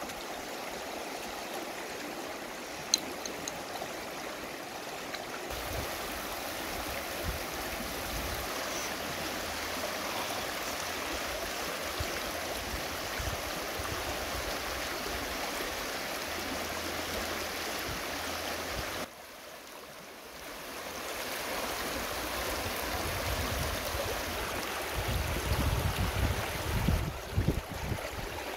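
Shallow river water running steadily over rocks. Near the end come several low, irregular thuds of a cleaver chopping meat on a wooden cutting board.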